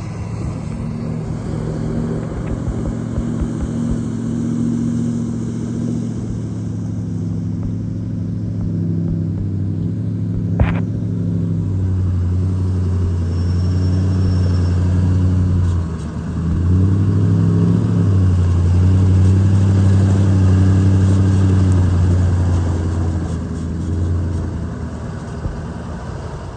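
A truck engine running and pulling under load, growing louder about halfway through, dipping briefly, then pulling harder again, with one sharp click partway.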